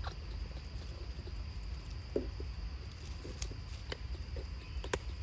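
Outdoor ambience: a steady high-pitched insect drone over a low rumble. A short faint squeak comes about two seconds in, and a few brief sharp clicks fall in the second half.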